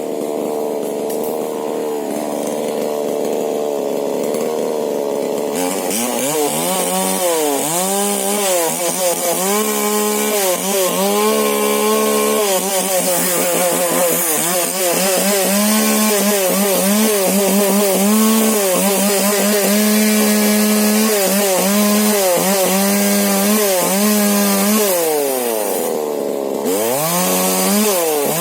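Husqvarna 125 two-stroke chainsaw with a modified exhaust, running at a steady lower speed, then revving up about six seconds in and sawing into a rubber tree trunk. The engine pitch wavers under the cutting load, sags briefly near the end, then climbs again.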